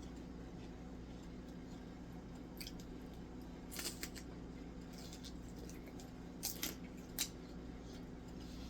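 Steady low electrical hum, with a few short, sharp clicks and crackles about four seconds in and a cluster more near the end.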